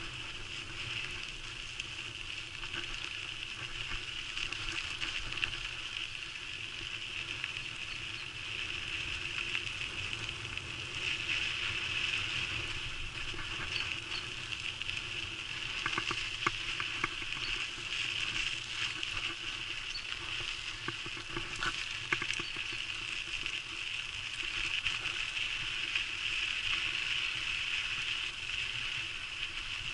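Bicycle rolling fast along a dirt and gravel trail: steady tyre and drivetrain noise with a hissing buzz, and scattered clicks and rattles as the bike goes over bumps.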